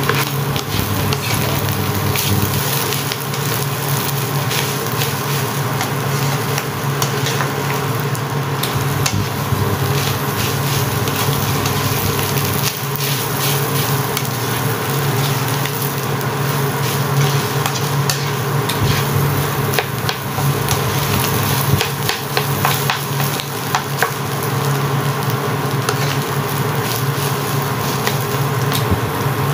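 Sticky (glutinous) fried rice sizzling in a nonstick pan while a plastic spatula stirs and scrapes through it, with frequent small clicks of the spatula against the pan.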